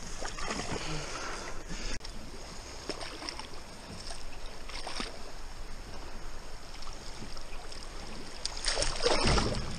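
A hooked fish splashing and thrashing at the water's surface beside a small boat, with water sloshing; the splashing is loudest near the end as it comes to the landing net.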